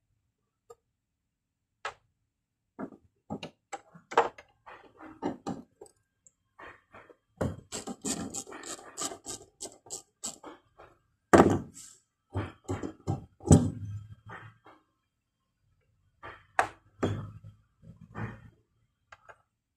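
Scattered clicks and knocks of hand work on a car's fuel pump assembly. There is a quick run of clicks about eight seconds in, and a few louder knocks around eleven to fourteen seconds in.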